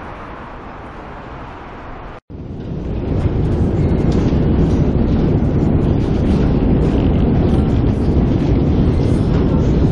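Light wind noise on the microphone, then after a cut about two seconds in, a loud, steady low rumble while riding down a long, deep metro escalator.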